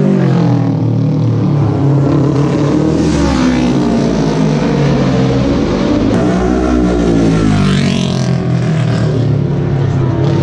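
Racing motorcycle engines at high revs going past on a road course. The engine note climbs sharply as a bike accelerates through the gears and drops away as it goes by, more than once.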